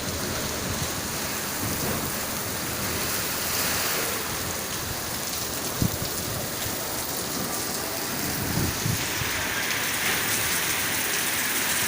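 Heavy rain pouring down, a steady hiss that grows a little louder and brighter in the last few seconds, with a single sharp knock about six seconds in.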